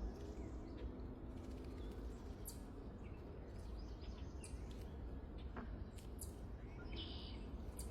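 Outdoor ambience: scattered short bird chirps over a steady low background rumble.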